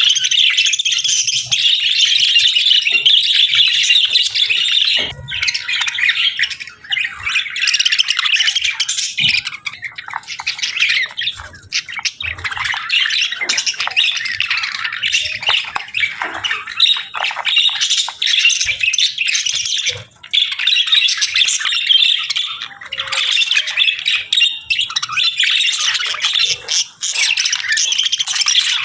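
Budgerigars chattering and squawking: a dense, continuous stream of rapid high chirps and warbles from several birds, with only brief breaks.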